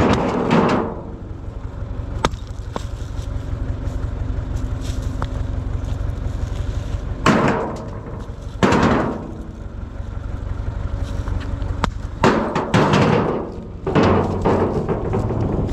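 Small tractor engine idling steadily while rocks are thrown into its steel trailer, landing several times with heavy thuds and scrapes. A few lighter, sharp knocks come in between.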